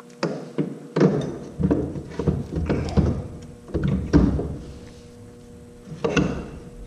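Aluminium front differential housing of a 1995 Honda Foreman 400 ATV clunking and knocking against the steel frame as it is worked into place by hand. It gives a string of irregular thunks through the first four or five seconds, then one more about six seconds in.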